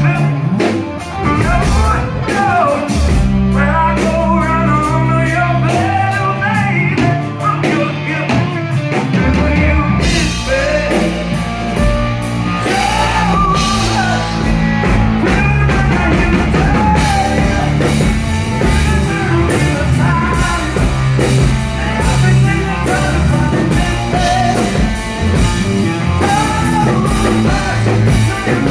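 Rock band playing live: a male singer over electric guitar and drums. The cymbals fill in much more densely about ten seconds in.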